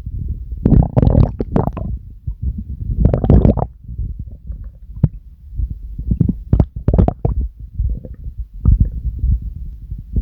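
A person's stomach growling and gurgling, made on command: a steady low rumble broken by irregular gurgling surges, the loudest about a second in, around three seconds and around seven seconds, with scattered short squelchy clicks.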